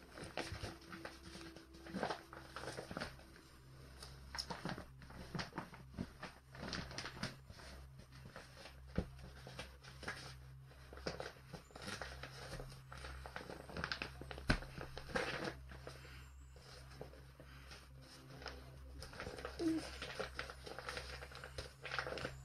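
Irregular crinkling and rustling of a clear plastic escape hood handled by gloved hands, with small crackles, over a faint steady low hum.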